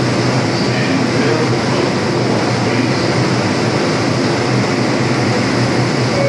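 An R142 subway train standing at the platform with its doors open, giving off a steady hum and hiss from its running equipment.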